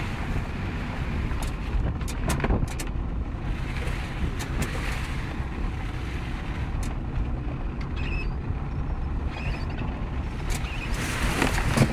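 Suzuki Vitara driving off road: a steady low engine and tyre rumble with wind on the microphone, and a few short knocks and clicks along the way.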